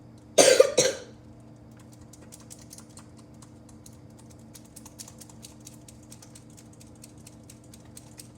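Handling noise: a loud, brief rush of noise about half a second in, then light, irregular clicks and taps, several a second, over a steady low hum.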